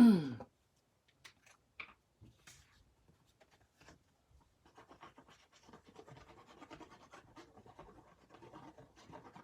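Cardstock and paper being handled on a craft table: scattered light taps and clicks, then steady scratching and rustling from about five seconds in. A brief voice sound falling in pitch right at the start.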